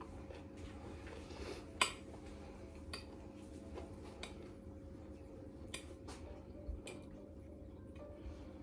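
Metal fork clinking against a plate several times, the loudest about two seconds in, over a faint steady hum.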